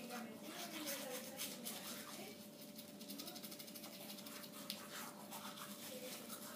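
Two people brushing their teeth with manual toothbrushes: a quick, uneven run of scrubbing strokes.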